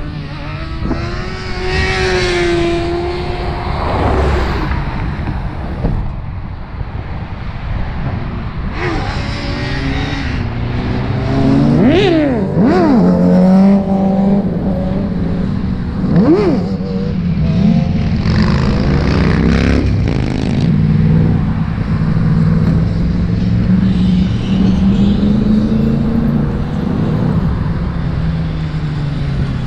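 Motorcycle engine running steadily under way. Other engines briefly rise and fall in pitch as they rev or go past, in the first few seconds and again about twelve and sixteen seconds in.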